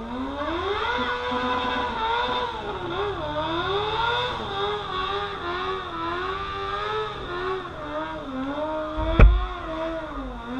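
Motorcycle engine revving up and then running with its pitch rising and falling with the throttle, as when riding. A single sharp knock about nine seconds in is the loudest moment.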